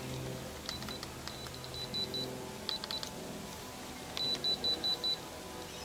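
Alarm system keypad sounding runs of short, high-pitched beeps with faint clicks while it is being coded into the system. There is a run of about six beeps in the first two seconds, a brief cluster near three seconds, and another run of about six beeps past four seconds.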